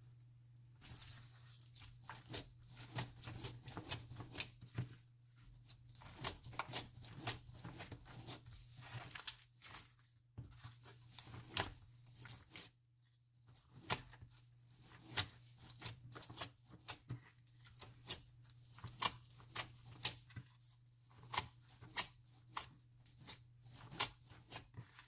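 Hands squishing, stretching and folding slime: irregular sticky pops and clicks, some loud, with short pauses between handfuls. A steady low hum runs underneath.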